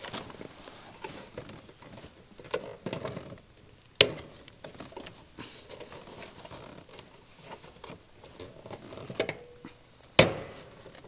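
Scattered small clicks and scrapes of a flathead screwdriver and hands working on an air-conditioner contactor and its wire terminals, with two sharp knocks, one about four seconds in and a louder one near the end.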